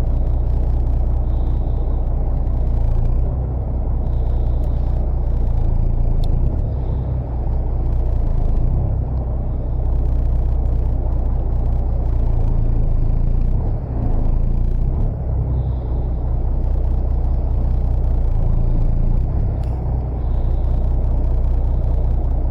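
Boat engine running steadily: a loud low drone with a rushing noise over it.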